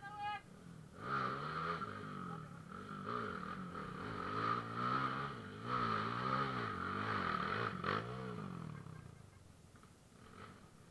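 Trail motorcycle engine revving up and down over and over, about once a second, then fading out near the end.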